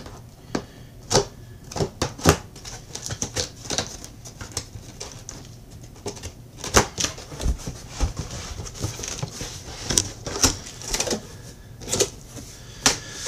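Large cardboard box being handled and opened: irregular sharp taps, knocks and scrapes of cardboard as it is turned over and its flaps are pulled open.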